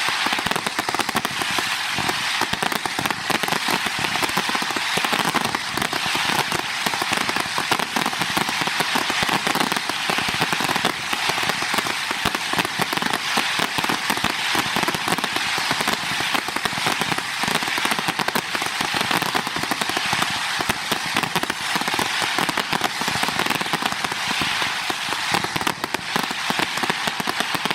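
Fireworks crackling: a dense, continuous run of rapid small pops at an even level, with no single big bang standing out.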